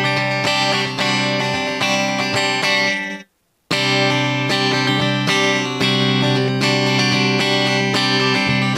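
Tagima TW-61 electric guitar, with neck and bridge pickups on together, playing picked chords on varitone switch position 1. The sound cuts out completely for about half a second a little over three seconds in, then the playing picks up again on varitone position 2.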